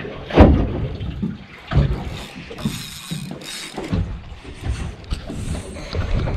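Wind buffeting the microphone and water moving against a small boat's hull, with a sharp knock about half a second in.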